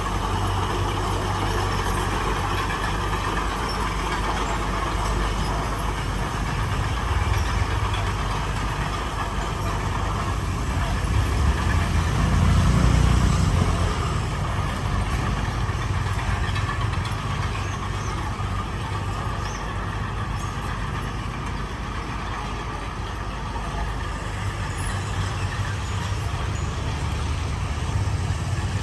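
Heavy diesel construction machinery running steadily, with its engine swelling louder for a couple of seconds near the middle.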